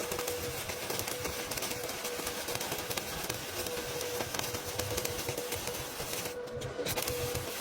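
Stick-welding arc crackling and sputtering steadily. The crackle cuts out for about half a second near the end, then resumes.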